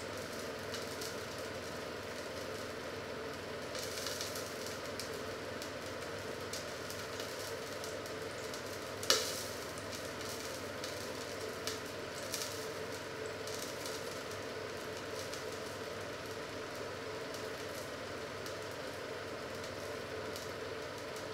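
Steady sizzling and crackling from a lidded cast-iron frying pan heating on the stove, with one sharp pop about nine seconds in and a couple of smaller pops soon after.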